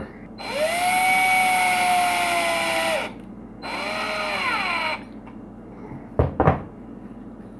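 Black+Decker 20V cordless drill with a long hex bit driving two screws into the aluminum plate of an RC truck's front differential housing. The motor whines up, runs steadily for about two and a half seconds and winds down, then runs again for about a second and a half. A short knock follows a little later.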